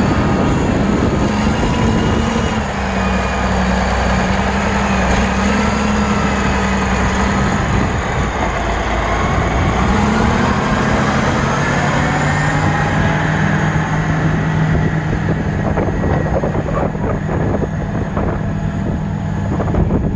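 Caterpillar 980B wheel loader's diesel engine running steadily while it works; about halfway through the engine note glides and then settles at a lower steady pitch.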